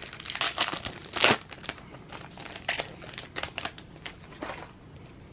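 Plastic wrapper of a Panini NBA Hoops card pack being torn open and crinkled by hand: a run of sharp crackles that thins out about four and a half seconds in.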